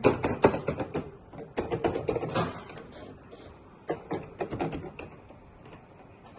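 Plastic keys of a Korg X5D synthesizer clacking as they are pressed in three quick runs, with no notes sounding: the instrument has lost its sound output.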